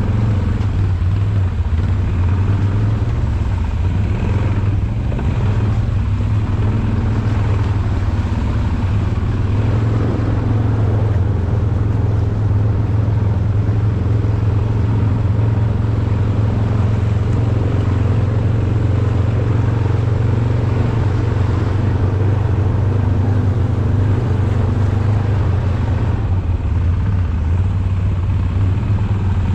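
ATV engine running at a steady speed with little change in pitch.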